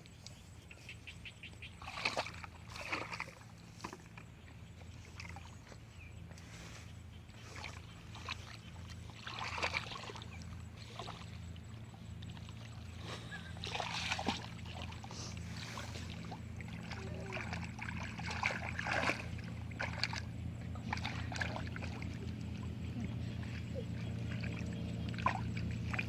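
A small motor hums steadily and grows gradually louder, with irregular splashes of water.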